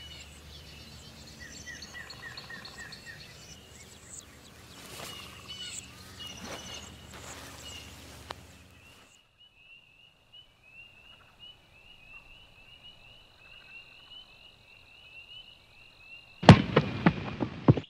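Outdoor woodland ambience with birds chirping. This gives way to a steady high trill that lasts about seven seconds, and a loud burst of noise near the end.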